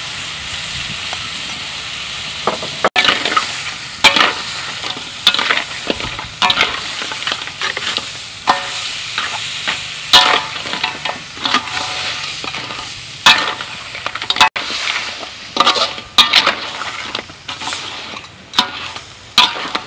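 Crab curry with milk just added, sizzling in a pan and being stirred. A utensil scrapes and knocks against the pan at irregular intervals over a steady sizzle, starting after a couple of seconds.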